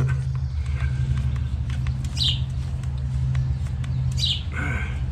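A pressure washer's small gas engine running steadily, with a bird chirping briefly twice, about two seconds in and again near the end.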